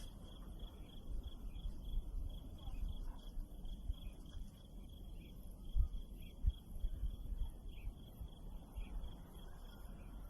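Faint insect chirping, a thin high trill pulsing at an even rate, over low rumbling with a few low thumps about six seconds in.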